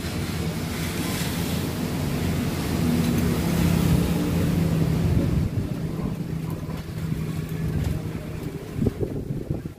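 Cylinder boring machine running, a steady mechanical hum as its boring bar turns in a motorcycle cylinder bore. The hum grows louder toward the middle, fades over the last few seconds, and a few knocks come near the end.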